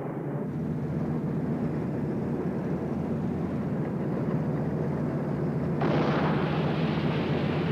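Steady low engine drone of a wartime landing scene, with a sudden loud rush of explosion noise about six seconds in that lasts a couple of seconds.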